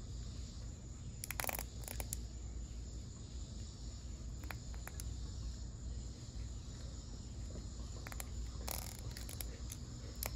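Scattered light clicks and rustles of hands crimping connectors onto horn wires with a crimping tool, over a faint steady chirring of crickets.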